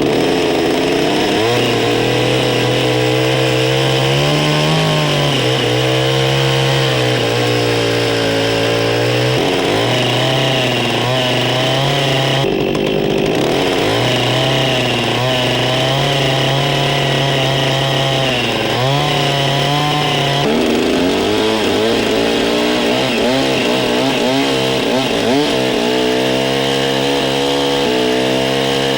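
Chainsaw running while cutting out a round saddle notch in a log, its engine speed rising and falling over and over as the chain bites into the wood and eases off.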